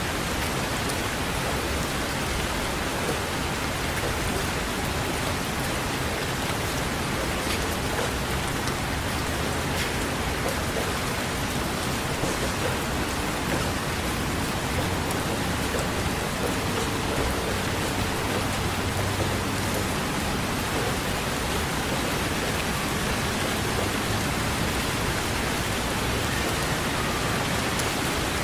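Steady rain, an even hiss of falling water with scattered individual drop taps.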